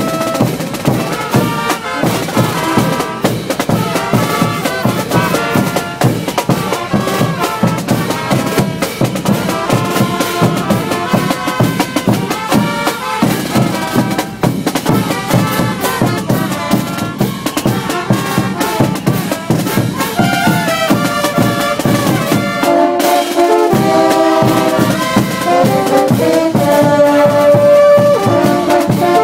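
A brass band, trumpets and trombones over bass drums, playing a steady marching tune. About three-quarters of the way through, the drums drop out for a moment and the brass holds long notes.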